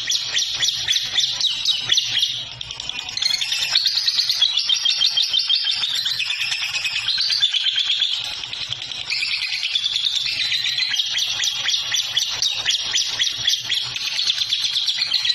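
A songbird singing without pause: fast runs of high chirps and trills that change phrase every second or two.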